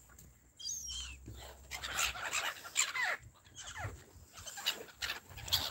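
Gulls calling in a flock, many short cries with falling pitch overlapping one another, with a low rumble under them for the first second or two.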